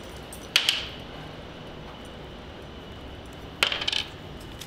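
Metal hardware on a leather camera-harness strap clinking as the strap is handled: two short jangling bursts, about half a second in and again near the end.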